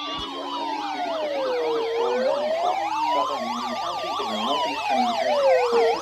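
Several weather alert radios sounding their alarms at once for a severe thunderstorm warning. A slow siren wail rises and falls about every four seconds over several fast electronic yelps.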